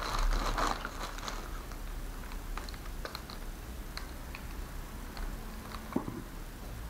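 Thin plastic wrapping rustling and crinkling as it is pulled off a small plastic dashcam, then scattered light clicks and taps as hands turn the camera body over, with one sharper knock about six seconds in.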